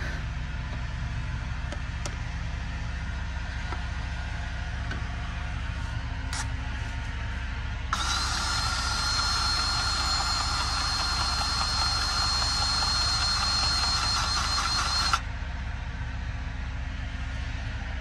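DeWalt cordless grease gun's motor running for about seven seconds, pumping grease into a fitting. It is a steady whine that starts about eight seconds in and cuts off abruptly, over a steady low engine hum.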